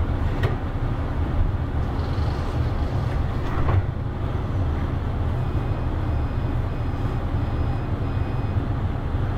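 SFO AirTrain, a rubber-tyred Bombardier CX-100 automated people mover, running along its elevated guideway, heard from inside the car: a steady low rumble of tyres and drive, with two brief knocks. In the second half comes a faint run of five short high beeps.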